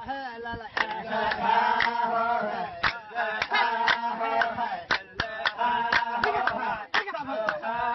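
A pair of Laysan albatrosses in a courtship dance: repeated drawn-out calls that bend in pitch, broken by many sharp bill clacks.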